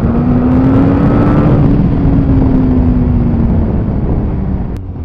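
Yamaha FZ8's inline-four engine through a MIVV Strom GP silencer with its baffle fitted, the revs climbing in the first second or so and then slowly easing off while riding, without popping. Wind noise on the microphone runs under it, and a short click comes near the end.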